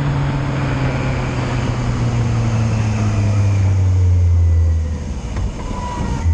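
Yamaha Fazer motorcycle engine slowing under engine braking, its note falling steadily in pitch while the wind rush over the bike dies down. About five seconds in the engine note drops away, then picks up again at the end.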